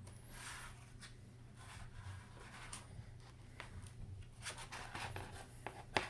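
A prying tool scraping and clicking along the edge of an iPad Air 2's screen as it is worked loose from the frame, with a sharper click near the end.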